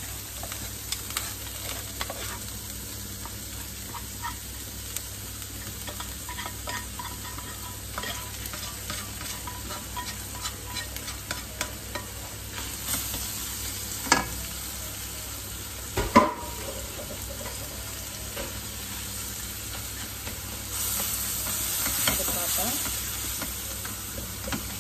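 Minced meat and meatballs sizzling in a wok while a spatula scrapes and clinks against the pan, as scrambled egg is scraped in from a second pan. Two loud metal knocks come about 14 and 16 seconds in, and the sizzling gets louder near the end as the egg is stirred through.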